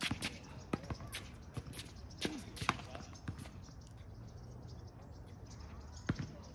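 Tennis ball struck by racquets and bouncing on a hard court during a rally: a string of sharp pops through the first three seconds or so, then a lone pop about six seconds in.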